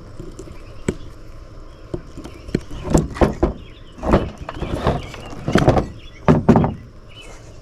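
Clunks, knocks and scraping from an old radio's casing being worked open by hand, coming in several bursts from about three seconds in, with a few lighter clicks before them. Birds chirp faintly in the background.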